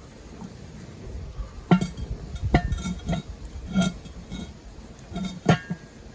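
Metal cooking utensils clinking against camp cookware: about five sharp knocks, each with a brief metallic ring, spread across a few seconds.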